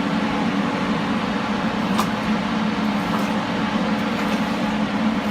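УБС 2200 drilling rig running steadily with a constant engine drone. A single sharp click about two seconds in.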